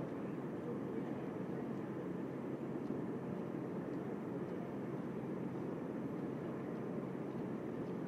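Quiet daytime ambience of a studio lot: a steady low rumble with a few faint ticks.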